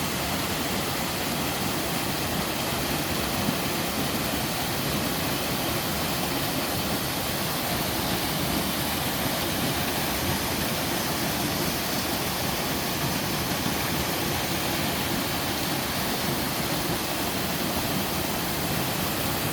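Twin mountain waterfall pouring steadily: an even, unbroken rush of falling water.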